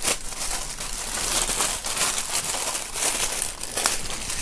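Clear plastic packaging bag crinkling and rustling as hands open it and handle the item inside.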